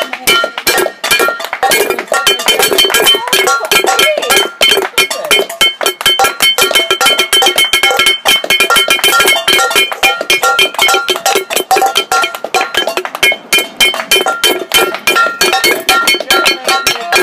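A wooden spoon beating a metal pan rapidly and continuously, several clanging strikes a second, with the pan's metallic ringing sustained under the blows.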